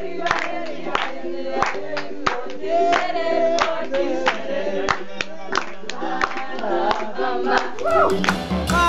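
A group of people singing together while clapping hands in a steady rhythm, about three claps a second. Near the end a music track with drums and bass comes in.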